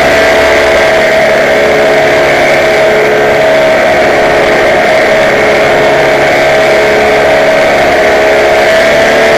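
Paramotor engine and propeller running at a steady cruise throttle: a loud, even drone that holds one pitch.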